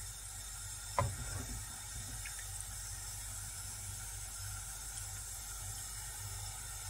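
A supplì (breaded rice croquette) lowered on a slotted metal skimmer into hot seed oil: a single knock about a second in, then a faint, steady sizzle of deep-frying.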